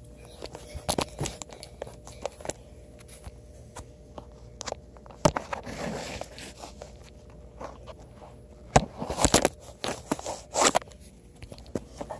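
Handling noise from a phone held close to the microphone: scattered clicks, knocks and rustling, with louder rubbing scrapes about halfway through and again near the end.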